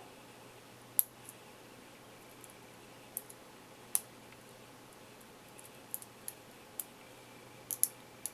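Steel lock picks and a tension wrench working a padlock's keyway, giving about a dozen sharp, irregular metallic clicks. The loudest click comes about a second in, with a cluster near the end.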